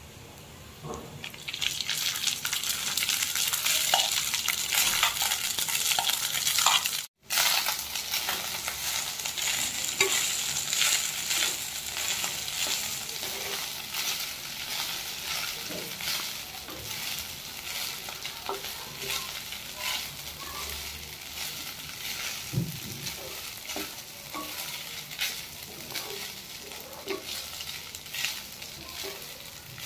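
Cooked rice sizzling in hot ghee with whole spices in a non-stick kadai, stirred and tossed with a wooden spatula that scrapes and taps against the pan. The sizzle starts about a second and a half in, breaks off for an instant around seven seconds, and slowly dies down.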